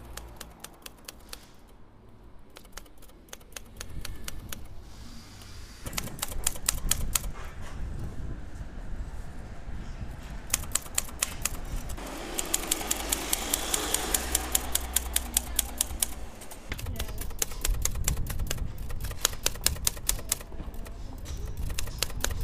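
Typewriter keys striking the paper in fast runs of sharp clicks, several strokes a second, with short pauses between runs.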